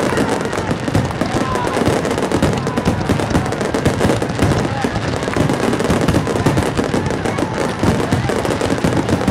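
Aerial fireworks bursting in a dense, unbroken barrage, with a rapid crackle of many small pops and no pauses.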